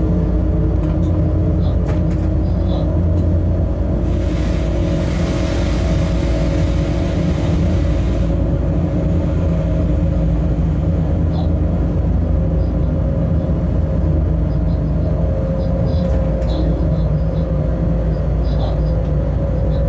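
Freight train running at steady speed, heard from inside the locomotive cab: a continuous low rumble of the running gear with a steady hum of several tones over it. A burst of hiss comes in about four seconds in and stops about four seconds later, and a few faint clicks are scattered through.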